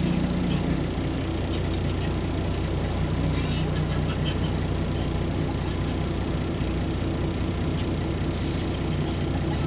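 LiAZ 5292 city bus's diesel engine idling steadily, heard from inside the passenger cabin. A short hiss of released air comes about eight seconds in.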